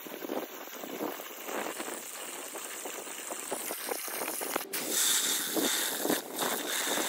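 Water from a garden hose spraying into a plastic water tub and a plastic bucket: a steady splashing that gets louder about five seconds in.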